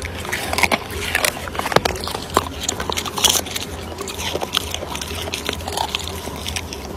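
A dog chewing vegetables, with irregular crunches one or two a second over a steady low hum.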